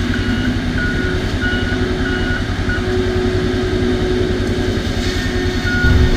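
Diesel engine of a John Deere bulldozer running steadily under work, with its backup alarm beeping about every 0.6 seconds as it reverses; the beeping pauses for a few seconds midway and starts again near the end.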